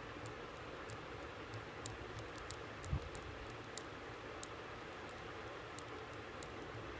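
Small, sharp, irregular clicks and ticks of small parts and tools being handled while working on a G-Shock wristwatch, with one soft thump about three seconds in, over a steady faint hiss.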